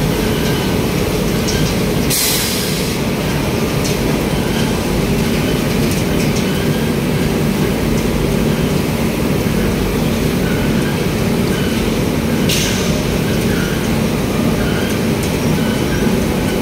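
Steady low rumble and hum of industrial plant machinery, with two short hisses, one about two seconds in and another about twelve seconds in.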